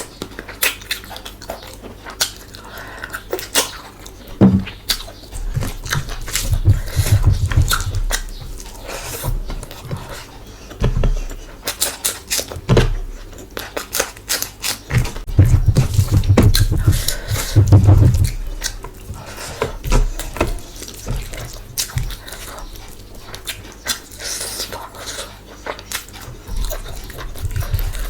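Close-miked eating sounds of mutton curry and rice being chewed: irregular wet chewing and mouth smacking with many sharp clicks, heavier in a couple of longer stretches.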